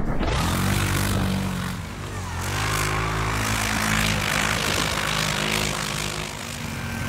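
CFMOTO Gladiator X1000 ATV on Camso snow tracks, its twin-cylinder engine revving hard under load as the tracks churn through deep powder, with a loud rushing hiss of spraying snow over it. The revs drop briefly about two seconds in and again near the end, then climb back.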